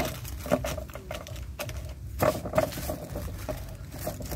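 Small packets of metal banana plugs handled by hand: irregular light clicks and rustles, with a few sharper knocks about half a second and two and a half seconds in.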